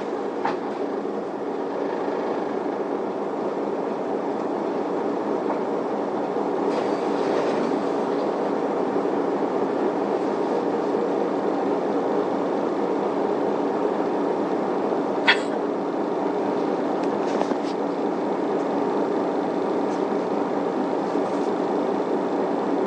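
Inside an Isuzu Erga city bus pulling away and running: diesel engine and drivetrain noise, growing gradually louder as it gathers speed. A single sharp click about fifteen seconds in.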